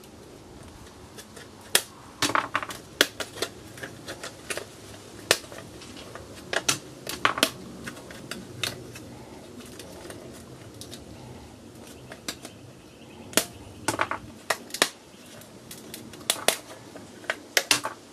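Irregular sharp clicks and snaps, some in quick clusters, as electronic components such as capacitors are wrenched off a printed circuit board by hand and set down on the bench.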